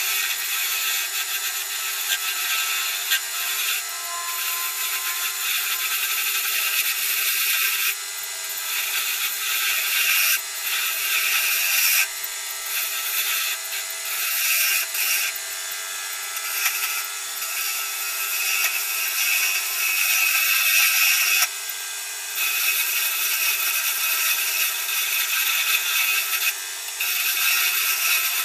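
Small wood lathe running while a hand-held turning chisel cuts a spinning celery wood pen blank, giving a steady hissing scrape. The cutting noise drops and comes back every few seconds as the tool's contact with the wood changes.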